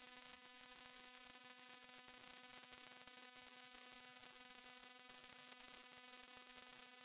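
Near silence: faint steady hiss with a low electrical hum, the recording's background noise.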